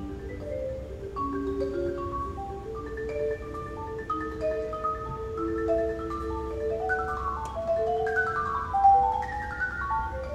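Solo marimba played with mallets: long held notes in the middle register, then quicker runs of notes falling in pitch from about seven seconds in.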